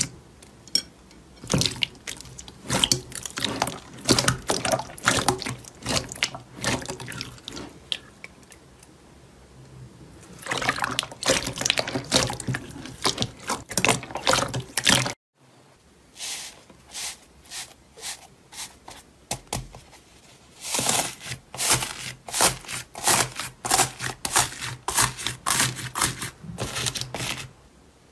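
Hands kneading and pressing clear, watery slime in a glass bowl, making wet squishing and squelching sounds in quick, irregular bursts. The sound stops abruptly about halfway through, then the squishing resumes.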